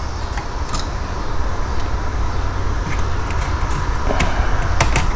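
Small sharp clicks of the metal plate and plastic parts of a Blaupunkt six-disc in-dash CD changer mechanism being pried and handled, a few scattered with two close together near the end, over a steady low background rumble.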